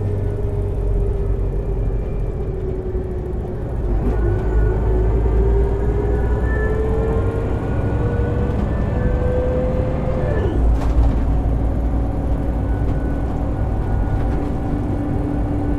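1999 Scania L94UB city bus under way, with a low rumble and the whine of its ZF Ecomat 5HP600 automatic gearbox. The whine climbs in pitch as the bus gathers speed, drops sharply at a gear upshift about ten seconds in, then runs steady at the lower pitch.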